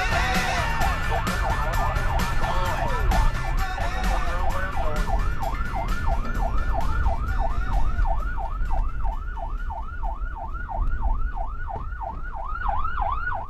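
Police car siren in pursuit: at first uneven rising and falling sweeps, then from about four seconds in a rapid yelp of about three sweeps a second. A heavy low engine and road rumble lies under it and eases off toward the end.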